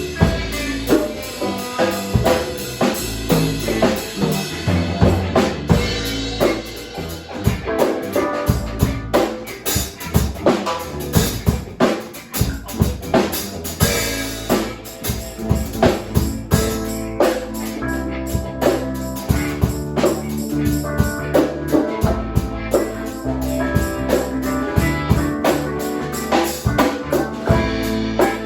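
Background music with a drum kit beat and a bass line.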